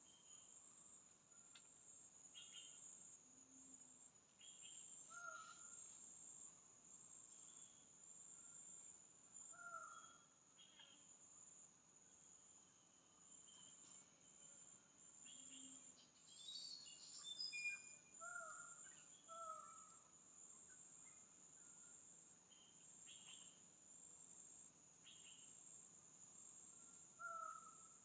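Faint tropical forest ambience: a steady, high-pitched insect drone, with an unidentified animal's short, falling call repeating every few seconds and a few other scattered calls.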